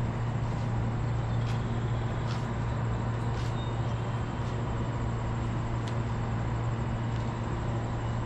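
Steady low hum from a JR West 227 series electric train standing at the platform, its on-board equipment running, with faint high ticks about once a second.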